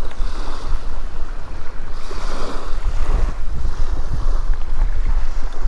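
Wind buffeting the microphone in a steady low rumble, with small waves washing up on a sandy shoreline in soft swells of hiss.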